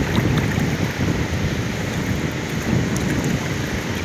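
Wind rumbling on the microphone over water sloshing and splashing around a person wading waist-deep as he hauls in a cast net, with a few small drips and splashes.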